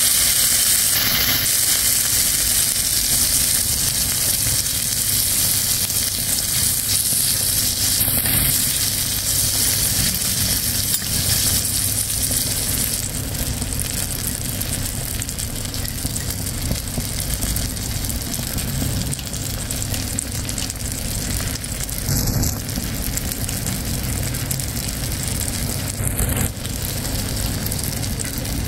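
Chopped tomatoes frying in hot oil in a small kadai, a steady sizzling hiss.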